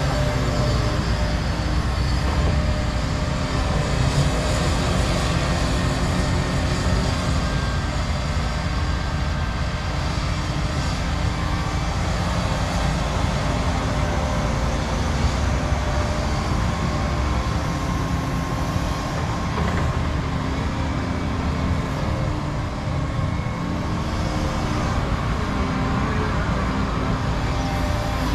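Diesel excavators at work, a steady engine drone, the nearest being a Cat 335 hydraulic excavator swinging and scooping topsoil.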